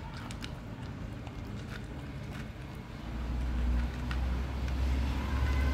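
A dog eating dry kibble fast from a plastic tray, with sharp clicks of crunching kibble and the tray. From about three seconds in, a low rumble rises and becomes the loudest sound.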